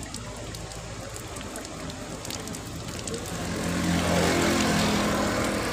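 Water gushing from a pipe outlet into a plastic bottle. The filling sound grows louder and its pitch rises steadily from about three seconds in as the bottle fills up.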